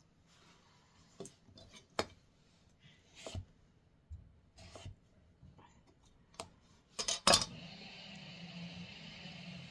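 Kitchen knife slicing avocado against a wooden cutting board, with light scattered knocks and clinks of fruit and utensils. A louder clatter of several quick knocks comes about seven seconds in, after which a steady hiss runs underneath.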